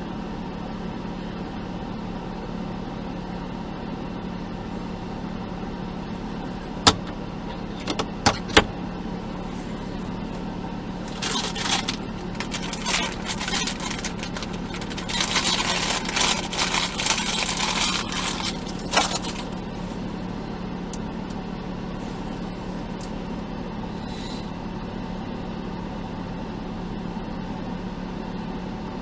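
Off-road vehicle engine idling with a steady low hum, with a few sharp clicks partway through and a stretch of rough scraping and crunching for several seconds in the middle.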